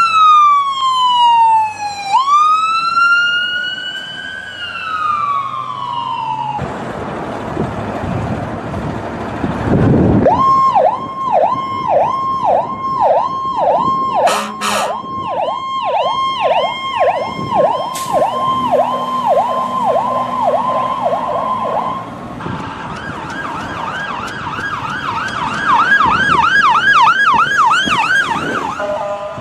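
American ambulance sirens, several takes in a row. First a slow wail that falls, rises and falls again, ending about six seconds in. Then a few seconds of rushing noise, then a fast yelp warbling about twice a second with two brief sharp sounds in it, and from about 22 seconds a quicker, higher-pitched yelp.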